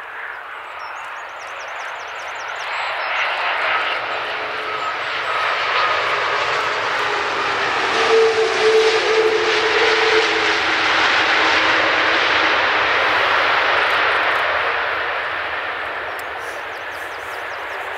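Large jet airliner's engines passing by: a broad rush that builds to a loud peak about halfway through and fades toward the end, with a tone that dips slightly in pitch as the aircraft goes past.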